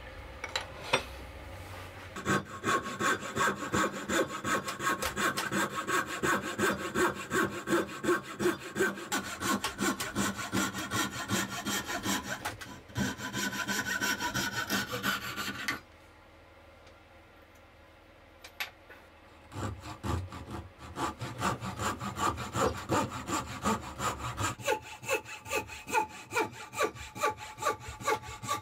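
Thin-bladed wooden frame saw cutting a curve in a cherry board, steady back-and-forth strokes about two a second. The sawing stops for a few seconds a little past halfway, then picks up again.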